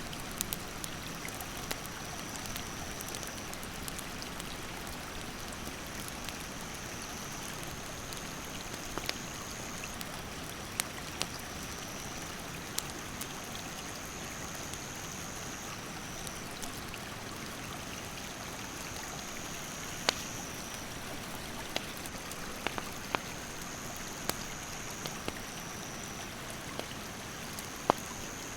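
A stream rushing steadily, with a wood fire crackling over it in scattered sharp pops, the loudest about two-thirds of the way through and near the end. A thin, high insect call runs above them, stepping back and forth between two pitches every few seconds.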